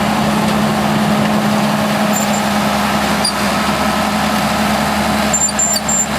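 Bulldozer engine running steadily under load as the machine drives up close, a continuous loud drone.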